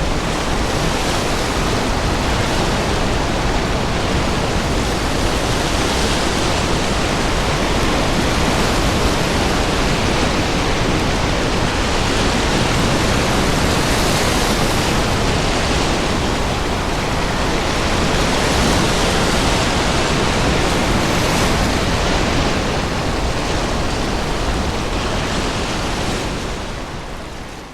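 Storm waves breaking and wind, a loud, continuous rush of surf with heavy low rumble, swelling every few seconds. It fades out near the end.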